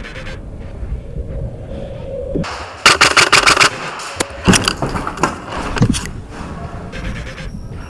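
Airsoft electric gun firing: a short fast full-auto burst about three seconds in, followed by a few single shots spaced apart.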